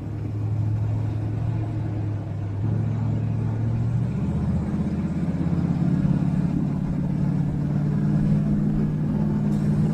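Bobcat S650 skid steer's diesel engine running steadily, its pitch stepping up twice in the first few seconds as it speeds up, then holding at the higher speed.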